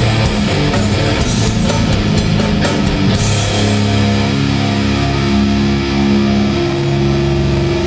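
Live hardcore band playing loud, with distorted electric guitars and drum kit. About three seconds in, the drum hits thin out and held guitar chords ring on.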